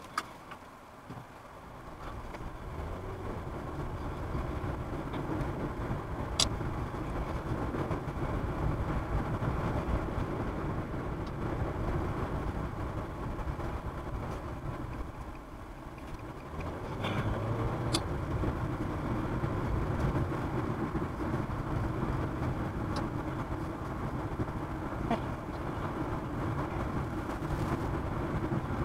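Car driving, with steady road and engine noise heard inside the cabin. It builds up about two seconds in, dips briefly around the middle, and has a few sharp clicks.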